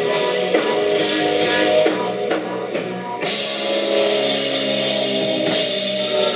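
A live rock band plays an instrumental passage: electric guitar and bass guitar notes over a drum kit with cymbals. About two and a half seconds in, the cymbals cut out for under a second, then come back.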